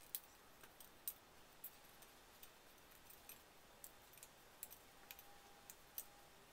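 Light, irregular clicks, one or two a second, from a metal felt-remover tool working inside the cork barrel of a bass trombone slide as it cuts out the worn felt.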